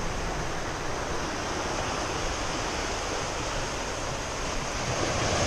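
Sea waves breaking and washing over a rocky, boulder-strewn shore: a steady hiss of surf, swelling a little near the end.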